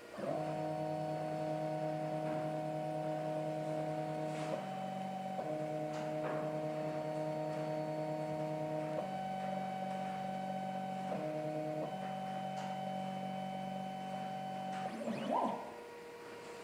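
Bench-mounted stepper motors running at steady speeds, giving a hum of several steady tones that jumps in pitch every few seconds as the commanded moves change. About fifteen seconds in they give a short swooping whine, the loudest moment, and stop.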